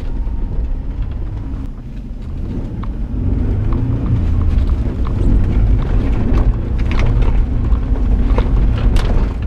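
Isuzu Trooper 4x4 driving over a rough dirt track. A steady low engine and road rumble runs throughout, with scattered knocks and rattles as it bumps along. It gets louder about three seconds in.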